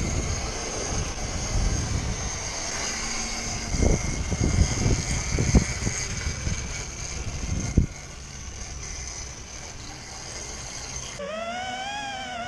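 Rumbling wind and rolling noise on a moving camera close to a running electric scooter, with a steady high whine and a few sharp knocks in the middle. The noise drops quieter about eight seconds in, and wavering electronic music starts near the end.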